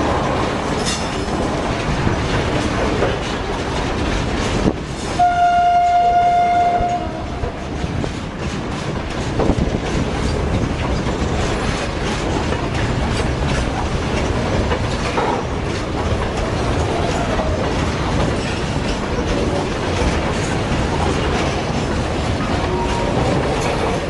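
BOXN freight wagons rolling slowly past, wheels rumbling and clacking over the rail joints. About five seconds in, the WAG-9 electric locomotive sounds its horn once, a single steady note lasting about two seconds.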